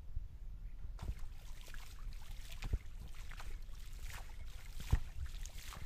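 Pond water splashing and sloshing as a cast net is hauled in through the shallows, starting about a second in, with a couple of louder thumps.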